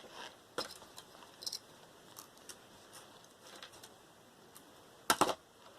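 Light clicks and taps of small metal and plastic computer parts being handled while a motherboard is stripped for scrap, with a sharper cluster of three quick clicks about five seconds in.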